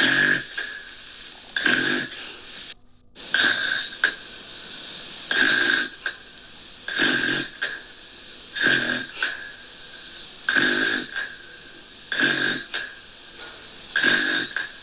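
Gentle snoring: a short, airy snore repeats about every two seconds. The sound cuts out for a moment about three seconds in.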